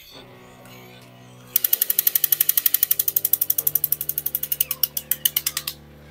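Battery-operated crawling Hulk soldier toy giving a loud, rapid rattle of clicks, about a dozen a second. It starts about a second and a half in and lasts about four seconds, turning uneven just before it stops.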